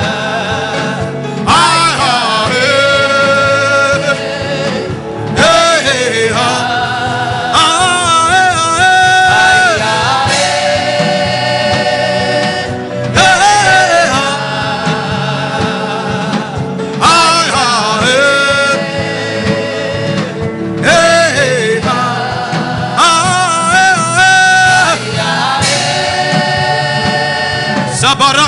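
Gospel-style worship music: a sung melody over a steady accompaniment, with a new vocal phrase starting about every four seconds.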